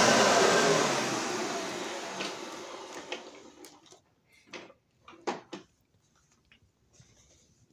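Hoover Elite upright vacuum cleaner switched off, its motor running down and fading out over about four seconds. A few light clicks and knocks follow.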